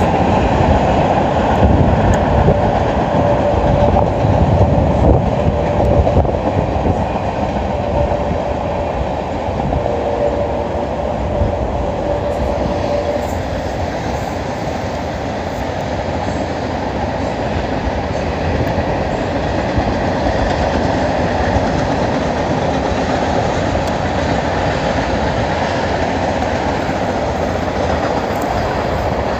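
Freight train rolling past, a steady rumble and clatter of its wheels on the rails, with a faint steady tone coming and going in the first half.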